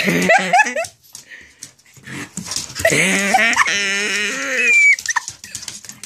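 Dogs play-growling and whining over a rope toy: a quick run of rising yips and growls at the start, then a long wavering growl of about two seconds that ends in a high whine.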